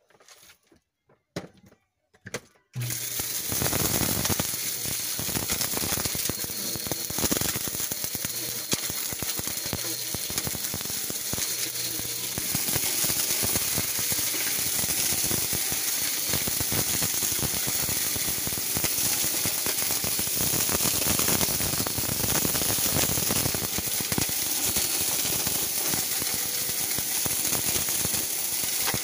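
Bissell PowerForce bagless upright vacuum switching on about three seconds in and running steadily. Its motor noise is thick with a constant crackle and rattle of glitter, sequins and beads being sucked up off the carpet into its clear bin.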